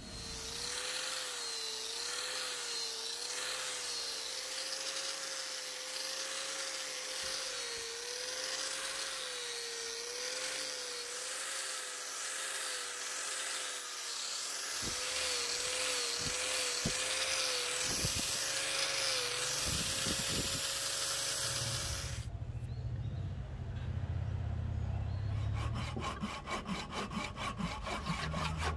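Angle grinder with a sanding disc running against a Siamese rosewood handle, its motor whine dipping and rising as the disc is pressed into the wood; it stops abruptly about two-thirds of the way through. Near the end, a fine-toothed hand saw cuts into the rosewood in quick, even strokes.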